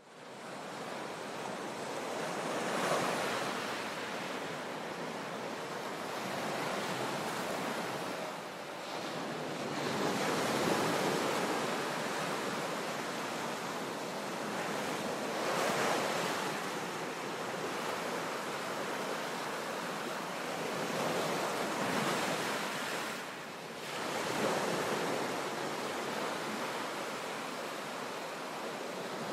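Sea waves surging into a sea cave: a continuous wash of surf that swells into a crash every few seconds.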